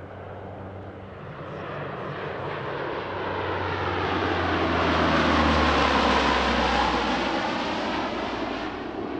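C-130E Hercules's four Allison T56 turboprop engines as the aircraft flies past. The drone builds to its loudest about six seconds in and then fades, its low propeller tone dropping in pitch as it passes.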